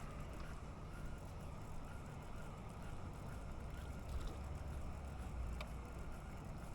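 Steady low rumble with a faint hiss over it, and two faint clicks about four and five and a half seconds in.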